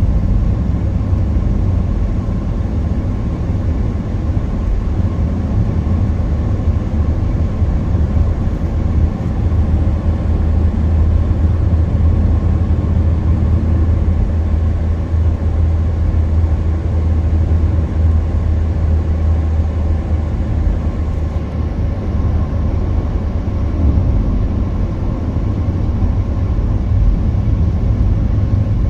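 Steady road and engine noise inside a moving car's cabin at road speed: an even low rumble of tyres and engine.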